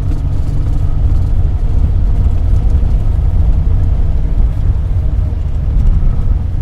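A 1984 Daihatsu Hijet 1000's three-cylinder engine running steadily while the van drives along, heard from inside the cab with a heavy low rumble.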